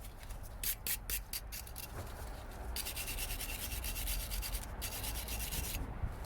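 Hand wire brush scrubbing brake pads clean, first in quick separate back-and-forth strokes, then a few seconds of continuous scrubbing.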